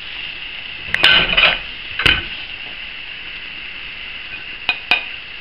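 A slotted spatula scrapes and knocks against a frying pan as browned beef strips are lifted out onto a plate. The clatters come about a second in, around two seconds, and twice near the end, over a steady sizzle from the hot pan.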